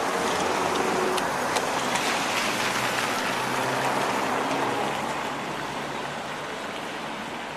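Water running and splashing into a street storm drain clogged with branches, grass and trash, a steady rushing that eases off after about five seconds. A faint low engine hum runs underneath.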